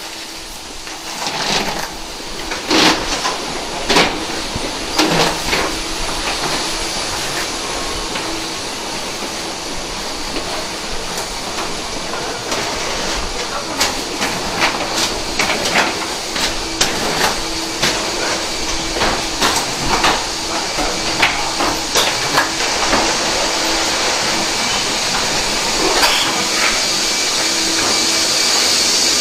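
Irregular knocks and clatter of rolling suitcases and footsteps moving along a jet bridge, over a steady rushing air hiss that grows louder toward the end.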